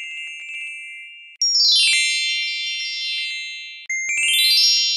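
Magic bells sparkle sound effect: high, glassy bell tones ring out in quick runs and fade away. A falling cascade of chimes comes about a second and a half in, and a rising run starts near the end.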